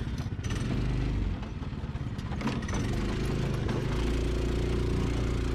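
196cc single-cylinder OHV engine of a mini buggy running under load over rough dirt, with a few knocks and rattles from the chassis. About two-thirds in, the engine settles into a steady, higher-revving note as it climbs.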